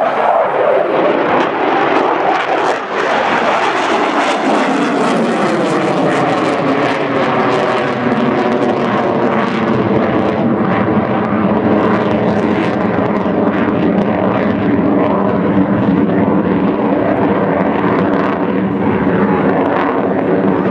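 Jet engines of an F-22 Raptor (twin Pratt & Whitney F119 turbofans) flying a demonstration, loud throughout. The pitch falls over the first few seconds as the jet passes, then holds steady as a continuous jet roar.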